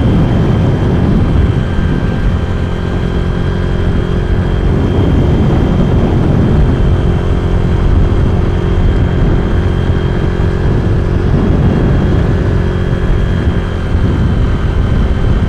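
Wind rushing over the microphone of a moving Honda Vario scooter, with the scooter's engine and belt drive running steadily at cruising speed underneath, and a thin steady high tone.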